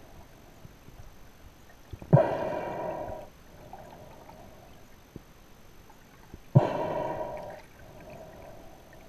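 Scuba diver breathing through a regulator underwater: two breaths about four seconds apart, each starting abruptly and fading away over a second or two.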